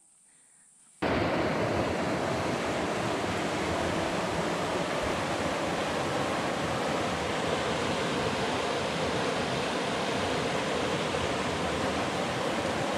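Rushing water of river rapids: a steady whitewater rush that starts suddenly about a second in.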